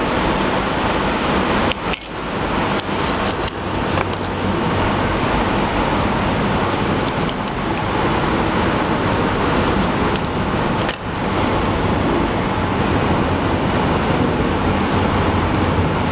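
A steady rushing noise with scattered light clicks and clinks of small metal screws and washers being handled.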